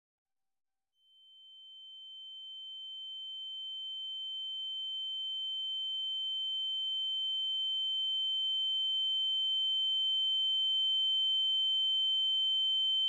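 A single steady high-pitched tone that never changes pitch. It begins about a second in and slowly swells louder.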